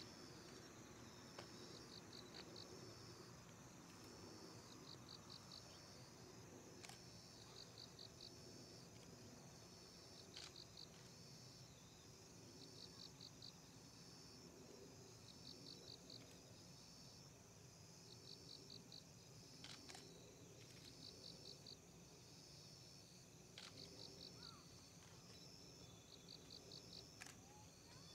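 Insects singing faintly in the grass: a short trill of four or five high pulses, repeated about every two seconds.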